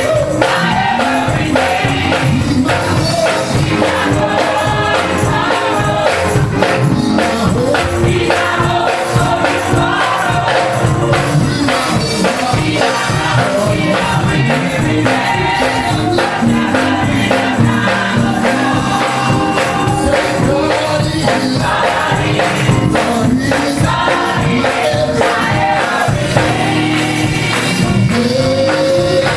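Gospel mass choir singing live with a band of guitar and bass over a steady beat.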